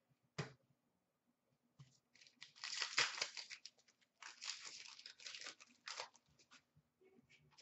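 Trading cards and a card pack wrapper handled by hand: a single sharp snap about half a second in, then two spells of crinkling and tearing as a pack is worked open and cards are shuffled.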